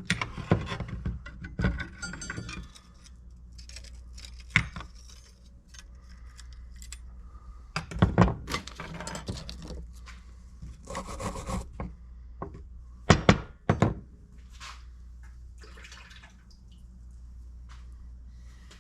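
Handling noise from a rusty padlock being taken off its wire and brushed down after electrolysis: scattered metal clicks and knocks, with a few short scratchy brushing stretches.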